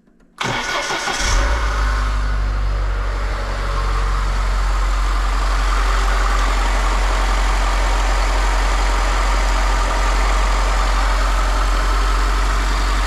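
Lada Niva's four-cylinder petrol engine cranking briefly and starting about half a second in, flaring briefly, then settling to a steady idle: the first start on freshly poured engine oil.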